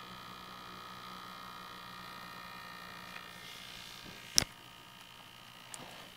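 Sony VAIO SZ laptop's cooling fan whining with several steady high tones over a low hum: the annoying fan noise the owner sets out to cure. The whine fades after about three seconds, and a sharp click comes a little after four seconds.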